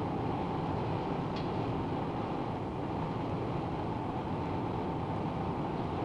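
Steady, dense industrial noise of a steel melting shop with its electric arc furnaces at work, with one short crackle about a second and a half in.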